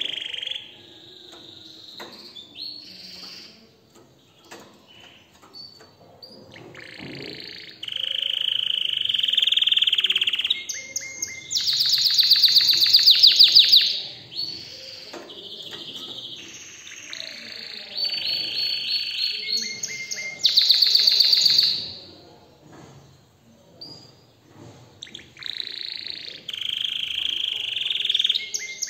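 A domestic canary in breeding-condition excitement singing: phrases of clear whistled notes alternating with fast rattling trills, broken by short pauses. The loudest, most rapid trills come about halfway through and again about two-thirds through.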